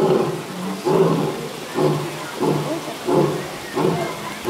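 A lion calling in a regular series of deep grunts, about one every three quarters of a second, like the grunting run of a lion's roar.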